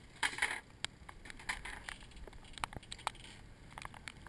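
Handling noise: scattered light clicks and knocks, with a short rustling rush just after the start.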